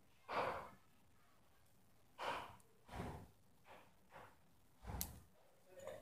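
Faint handling noises on a concrete floor as plum pits and a hatchet are picked up and set in place: a handful of short, soft knocks and scuffs, with a sharper click about five seconds in.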